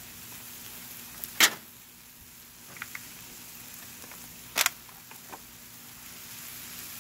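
Vegetables and bean sprouts sizzling steadily on a hot flat-top griddle as cold cooked rice goes onto it, with two sharp clacks about a second and a half and four and a half seconds in and a few lighter clicks between.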